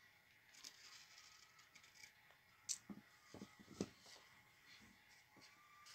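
Faint scratching of an acrylic paint pen's nib drawing on skateboard grip tape, with two short sharp clicks a little past the middle.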